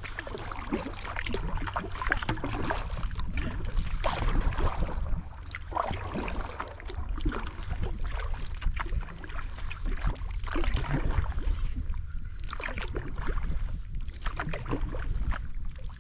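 Water splashing and sloshing around a kayak as it is paddled, with irregular splashes throughout over a steady low rumble.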